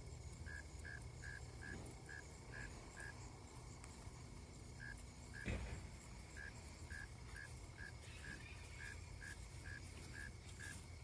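Faint insect chirping: short chirps on one pitch repeated about three times a second, with a single knock about halfway through.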